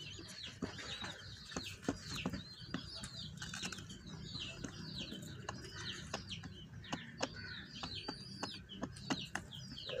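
Nestling chick cheeping to beg for food: a steady run of short, high, falling cheeps, two or three a second, with sharp clicks and rustling of the nest grass as it is handled.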